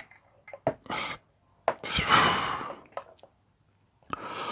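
A man's loud breath, a heavy gasp lasting about a second, starting a little under two seconds in, after a couple of shorter breaths, with a few small handling clicks.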